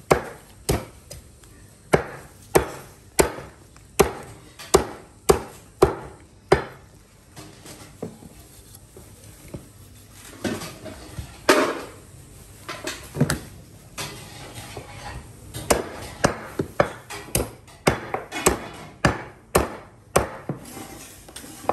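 Butcher's blade chopping through meat and bone on a wooden chopping block: sharp strikes about two a second, sparser around the middle, then coming quicker near the end.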